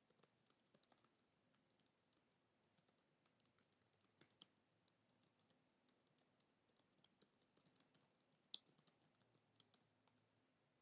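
Faint typing on a computer keyboard: irregular key clicks, a few a second, stopping near the end.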